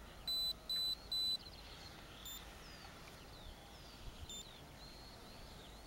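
Radio-control transmitter beeping: three short, steady electronic beeps about half a second apart, then two single brief beeps a couple of seconds apart. Birds chirp faintly throughout.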